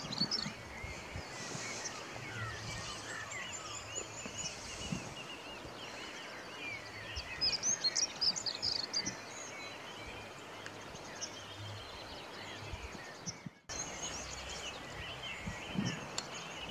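Small birds chirping and warbling over a faint steady outdoor hiss, busiest at the start and again about eight seconds in. The sound cuts out for an instant about two-thirds of the way through.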